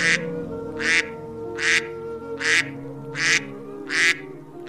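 A duck quacking in a steady series, six raspy quacks about one every 0.8 seconds, over soft background music.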